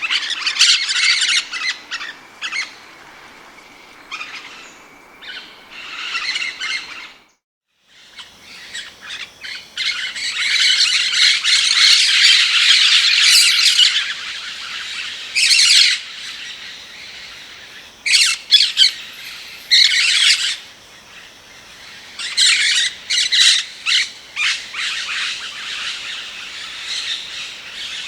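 Rose-headed (plum-headed) parakeet calling: a long run of shrill squawks and chattering chirps, with one short silent gap about seven seconds in.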